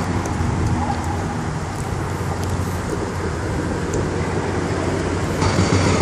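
Inline skate wheels rolling on an asphalt path, a steady rumbling hiss that gets harsher and a little louder about five and a half seconds in.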